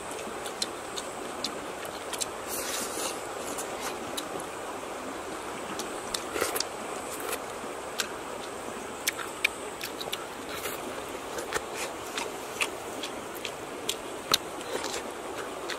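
A steady rush of flowing river water, with scattered sharp clicks and smacks of eating as grilled fish is picked apart by hand and chewed.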